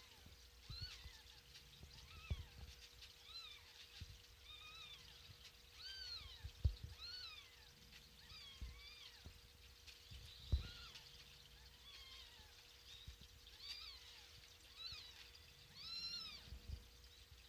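A cat meowing again and again, short high-pitched calls that rise and fall, roughly one a second, with a few dull low thumps in between.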